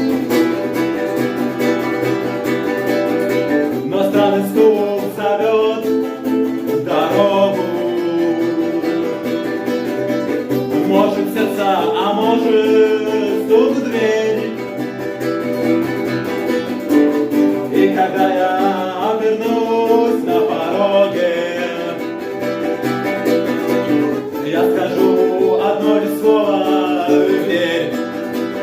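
Acoustic guitar strummed steadily in chords, with a voice singing a melody over it in phrases a few seconds long.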